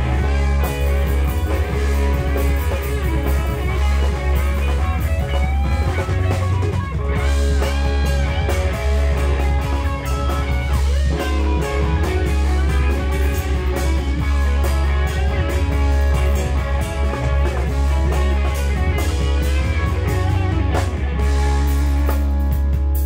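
Live rock band playing an instrumental passage: electric guitar over a drum kit, with a heavy, steady low end.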